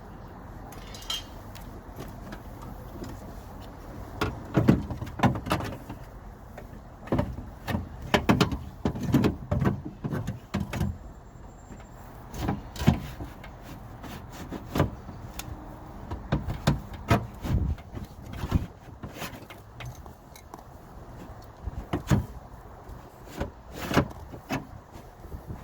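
Irregular clicks, knocks and rattles of metal and plastic parts being handled and worked inside an open car door, busiest from about four seconds in.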